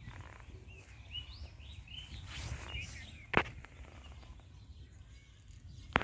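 Small birds chirping in short rising and falling calls during the first half, over a steady low rumble. A single sharp click comes about three and a half seconds in.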